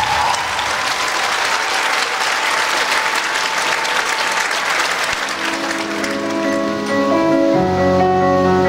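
Audience applauding. The clapping thins out after about five seconds as slow music with held notes begins, and deeper notes join it near the end.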